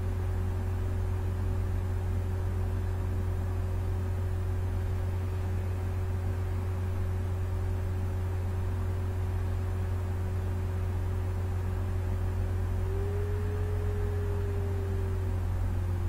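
Steady low hum with a faint steady whine over it; the whine lifts slightly in pitch about thirteen seconds in, then sags near the end.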